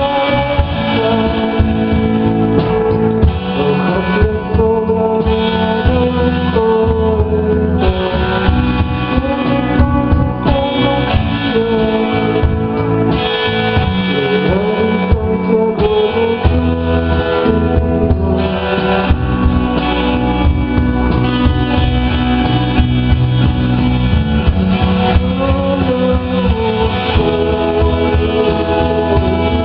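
Live rock band playing: electric guitar, bass, synthesizer and drums.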